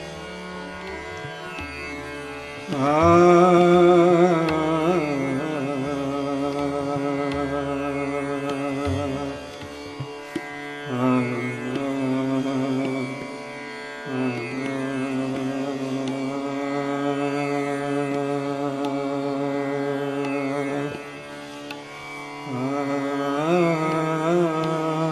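Hindustani classical singing in raga Alhaiya Bilawal over a steady drone. The voice holds long notes, bent and shaken with ornaments, in phrases that begin about three seconds in and break off briefly several times.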